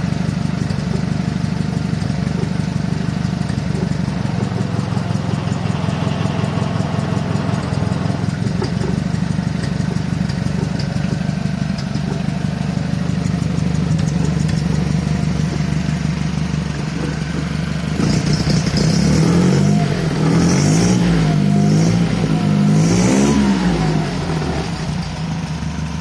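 Rebuilt Albin 411 marine engine running through a short muffler, idling steadily. Past the three-quarter mark it is revved up and down three or four times, then drops back toward idle near the end.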